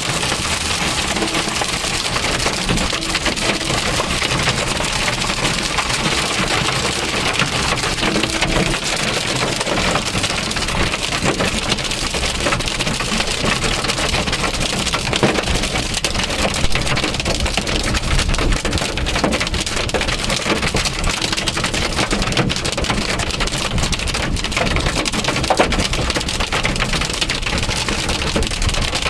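Heavy hail drumming on a car: a dense, steady clatter of countless small hailstone impacts.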